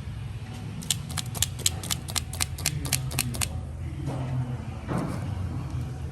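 A quick, even run of about a dozen sharp clicks, about five a second, over a low steady hum. The clicking stops about three and a half seconds in.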